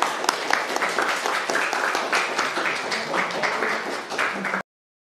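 Congregation applauding: dense, steady hand-clapping that cuts off abruptly near the end.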